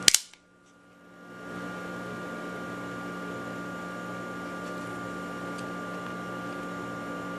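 A single sharp snap as an AGA Campolin Batwing Swinguard stiletto switchblade fires, its blade springing open and locking. It is followed by a steady background hum with a few held tones.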